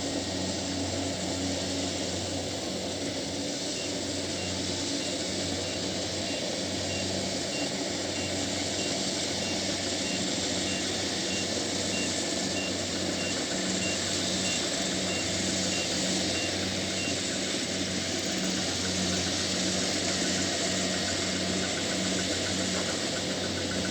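Kubota DC70 Plus rice combine harvester's diesel engine running steadily at working speed, with its machinery adding a steady broad noise.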